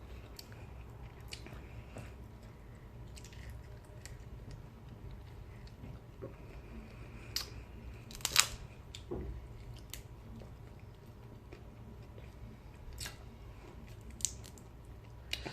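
Close-miked eating sounds from a seafood meal: quiet chewing with scattered sharp clicks and cracks, the loudest a little past halfway through.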